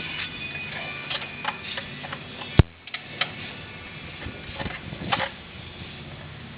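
Scattered metallic clinks and taps of hand tools and brake parts on a car's rear brake caliper and its bracket. One sharp, loud metal clank comes about two and a half seconds in.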